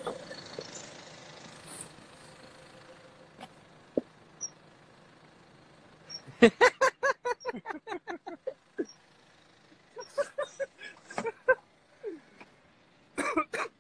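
Men laughing: a quick run of 'ha-ha-ha' pulses about six a second for roughly two seconds, starting about six seconds in, with shorter bouts of laughter later on.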